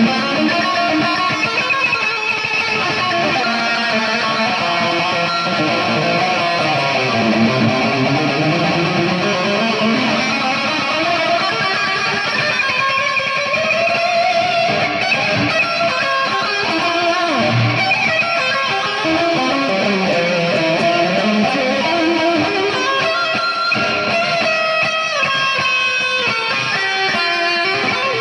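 Electric guitar playing continuously, with sliding notes and a fast descending run of notes near the end.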